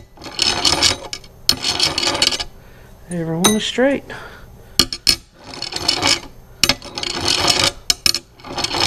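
Steel pushrods from an Oldsmobile 455 V8 rolled back and forth across a sheet of glass to check for bends: four rolling rasps of about a second each, with clicks as rods are set down and picked up. The slight roughness comes from the glass surface, not a bent rod; these rods roll straight.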